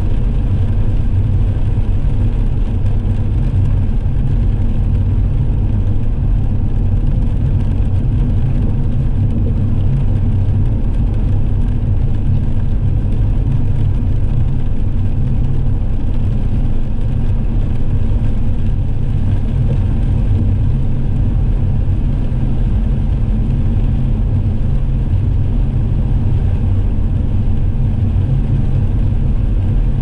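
A car driving, with a steady low rumble of engine and road noise that holds even throughout.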